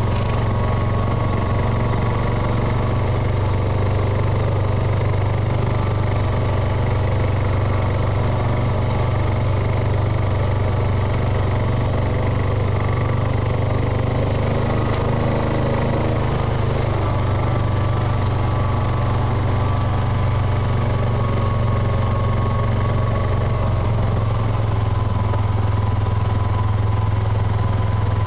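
Small off-road vehicle's engine running steadily at low speed, a constant low drone with no change in loudness.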